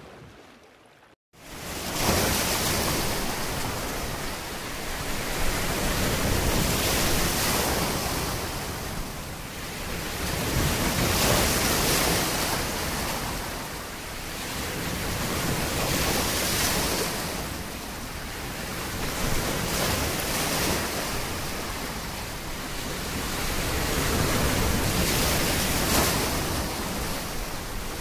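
Sea waves rushing, swelling and fading slowly about every four to five seconds. The noise starts suddenly after a brief silence about a second in.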